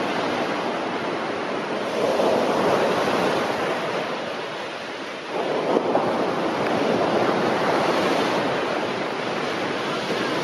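Sea surf breaking on a sandy beach, waves crashing and washing up the sand in swells: one surge grows louder about two seconds in, eases off, and another breaks a little after five seconds in.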